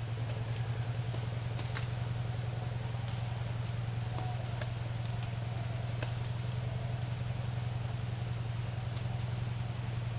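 Steady low hum of an idling engine, with a few faint clicks.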